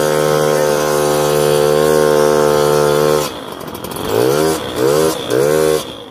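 Small two-stroke engine of a motorized bike running at a steady speed under way. About three seconds in the throttle closes and the engine is revved up and down three times.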